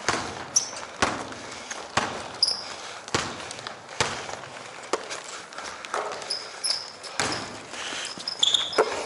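Basketball dribbled on a hardwood gym floor, bouncing about once a second, with short high sneaker squeaks.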